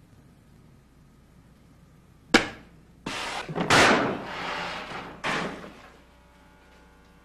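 A sharp, loud bang like a slam, followed by several seconds of rushing noise in bursts, the loudest about a second after the bang, with one more short burst near the end.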